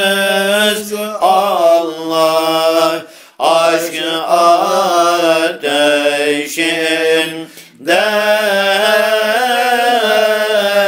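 Voices chanting a slow Turkish Sufi hymn (ilahi) over a low note held steady beneath the melody. It breaks off briefly about three seconds in and again near eight seconds. The line 'ateşinde' is sung near the end.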